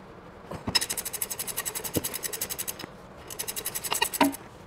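Ratchet wrench clicking rapidly, about a dozen clicks a second, in two runs while an engine mount nut is run off its stud, with a short knock near the end.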